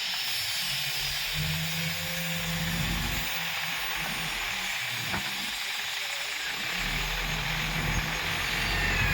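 Heavy diesel engine running under a steady hiss, its low note swelling about a second and a half in, easing off, and coming up again near seven seconds.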